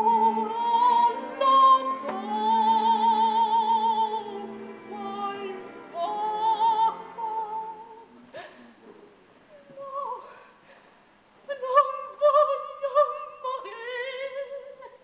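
Operatic soprano singing long phrases with a wide vibrato over soft accompaniment. The voice breaks off about eight seconds in and comes back with a new, higher-lying phrase near the end.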